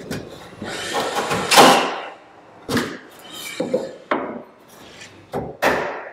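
Pine balusters and fillets being handled and set into a handrail channel: a loud scrape of timber on timber about a second in, then a few sharp single wooden knocks.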